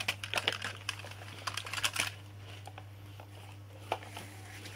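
Plastic toy vehicles being handled and pushed about, clicking and clattering against each other in a quick run of small knocks for the first two seconds, then a single knock near the end.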